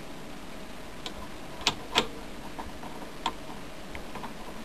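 A handful of sharp, irregular metallic clicks and taps, two of them louder close together about two seconds in: a new machined flange for the lathe chuck knocking against the threaded spindle nose of an Emco Unimat SL lathe as it is fitted by hand.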